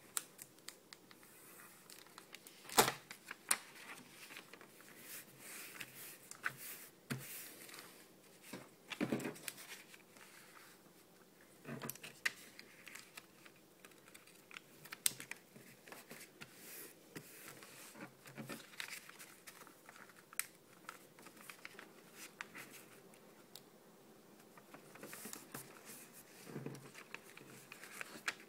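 Sheet of lined notebook paper being folded by hand into a paper airplane: irregular rustling, sliding and creasing of the paper, with a sharp click about three seconds in.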